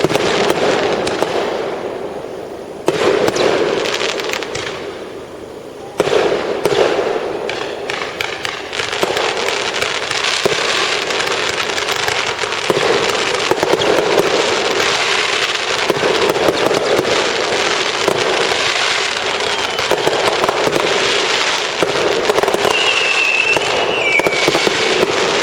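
Fireworks going off: loud sharp bangs about three and six seconds in, then a dense, unbroken run of crackling reports and booms, with a brief high whistle near the end.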